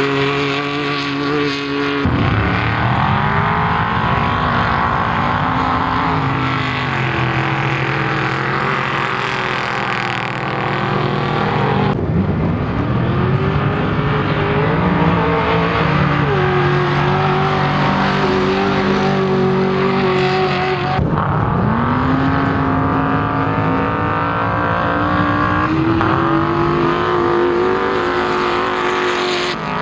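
Off-road race vehicle engines revving and accelerating hard, pitch rising and then holding. The sound is made of several shots that cut off suddenly roughly every ten seconds.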